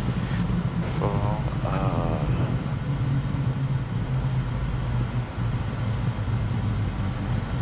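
Steady low drone of a Cirrus SF50 Vision Jet's single turbofan engine and airframe, heard inside the cockpit while the jet taxis after landing. A faint voice cuts in briefly about a second in.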